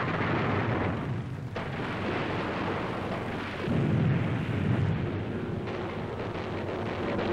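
Shipboard anti-aircraft gunfire and explosions blending into a continuous rumbling barrage, louder about four seconds in.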